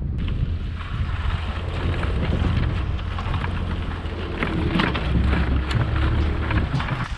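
Pickup truck running slowly across a rough pasture with a chain-link drag harrow in tow: a steady low rumble with a busy clatter of small knocks and wind buffeting the microphone.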